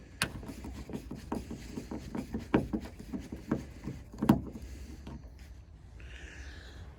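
A rapid, irregular series of clicks and light knocks from a tool working a Torx T20 screw loose inside a car door. The loudest knock comes about four seconds in, then a brief hiss near the end.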